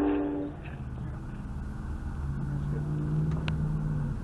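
A diesel locomotive's air horn chord ends about half a second in. It gives way to the low steady drone of passing BNSF freight diesel locomotives, which rises slightly in pitch and cuts off abruptly near the end.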